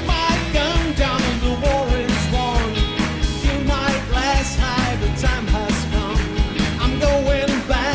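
Live rock band playing an upbeat song with a steady drum beat, electric guitar, bass and keyboards, and a male lead voice singing.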